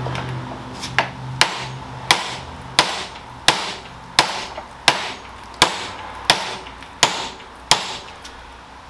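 Steady hammer blows on steel, eleven strikes about 0.7 s apart, each with a short metallic ring, driving the Saab 9-3's seized mid shaft out of its bearing as it starts to come free. A low hum fades out in the first second or so.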